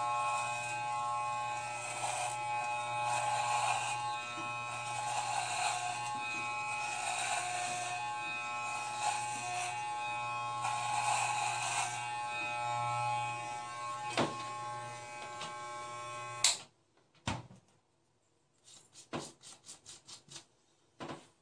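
Electric hair clippers buzzing steadily as they shave the back of a head, with a hiss that comes and goes on each pass through the hair. The clippers switch off abruptly about three-quarters of the way through, followed by a few light clicks and a quick run of ticks.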